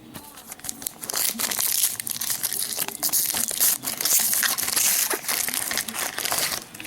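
Foil wrapper of a Panini Prizm card pack crinkling loudly while being handled and torn open. It starts about a second in and stops shortly before the end.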